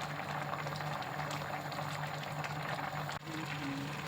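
Basmati rice bubbling at a steady boil in spiced water in a pot, with fine crackling pops over a steady low hum; it dips sharply for a moment about three seconds in.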